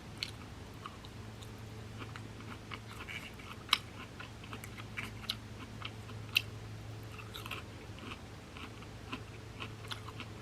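Close-up chewing of a mouthful of shrimp sushi: soft, irregular wet mouth clicks and smacks, with two sharper clicks a few seconds apart, over a faint steady low hum.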